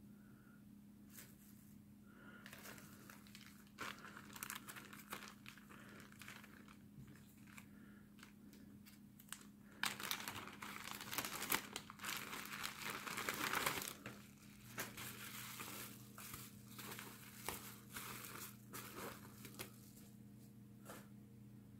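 Plastic packaging bags and bubble-wrap pouches crinkling as they are handled and pulled open. The crinkling comes in irregular bursts and is loudest for about four seconds around the middle, over a faint steady low hum.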